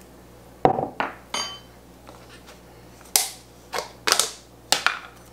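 Three knocks and clinks of a metal measuring spoon against a glass mason jar, the last one ringing briefly, then four short snaps as the lid of a plastic tub is pried off.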